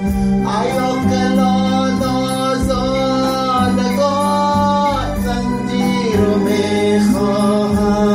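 Afghan song: a voice sings long, bending phrases over a steady held low note in the accompaniment, with a short break in the singing about five seconds in.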